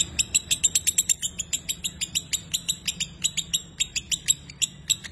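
Lovebird singing its 'ngekek': an unbroken run of sharp, shrill chattering calls at about ten a second.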